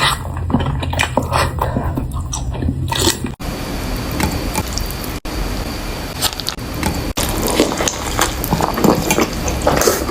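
Close-miked wet eating sounds: chewing and smacking of food, irregular and squishy, broken by three very brief dropouts.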